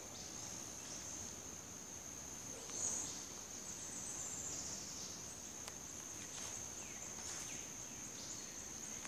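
Insects in the forest making a steady, high-pitched drone, with a few soft rustles of footsteps in dry leaf litter and one brief louder rustle about three seconds in.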